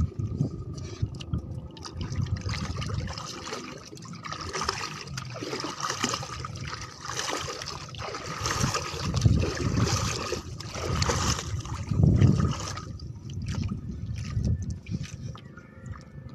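Sea water sloshing and splashing against the side of a small boat in choppy water, with gusts of wind rumbling on the microphone. The splashing is strongest in the middle and eases near the end.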